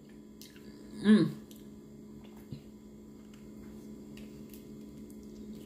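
A short hummed "mm" about a second in, with a falling pitch, then faint mouth and eating clicks as a big bite is taken from a large burrito, over a steady low electrical hum.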